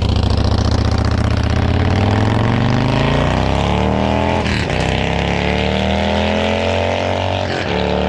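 Harley-Davidson V-twin with SVT Boneshakers slip-on mufflers accelerating hard through the gears. The exhaust note climbs in pitch, drops at a gear change about halfway through, climbs again, and drops at another change near the end.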